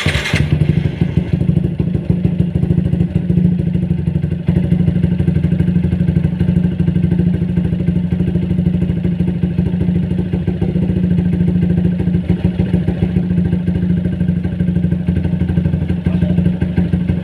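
Four-stroke motorcycle engine idling steadily, its exhaust beating in quick, even pulses, fresh fully synthetic oil in the engine. It is being run to check for an engine knock that the owner reckons the new oil has cut to about 20% but not cured.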